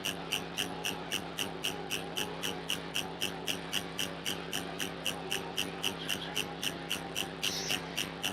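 Triwave Pico DIY dronebox synthesizer holding a steady low drone of several layered tones, with a sharp, high ticking pulse repeating about four times a second over it. A brief hiss joins near the end.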